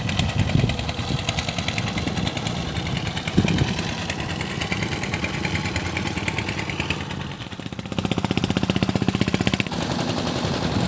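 A small engine running with a rapid, even putter, growing louder for a couple of seconds near the end.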